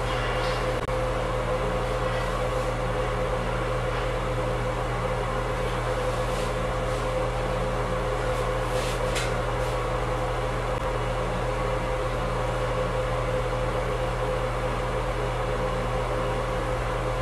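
Steady drone of a ventilation fan, a constant hum with one clear pitched tone and a low electrical hum under it. A few faint clicks come through, one near the start and others at about 4 and 9 seconds.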